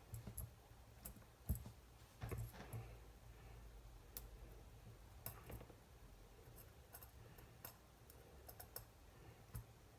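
Faint, scattered clicks and light knocks of small parts and a hand tool being handled on a workbench, over a low steady hum.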